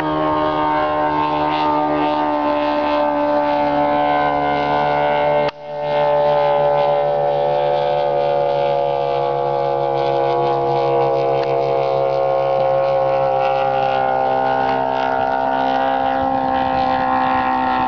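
Homemade light aircraft's engine and propeller droning overhead, a steady pitched hum that slowly sinks in pitch. It cuts out for a moment about five and a half seconds in, then comes straight back.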